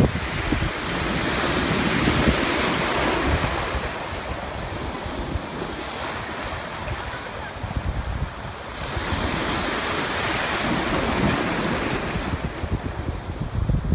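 Ocean surf breaking and washing through the shallows, with wind rumbling on the microphone. The wash swells louder twice, about a second in and again around two-thirds of the way through.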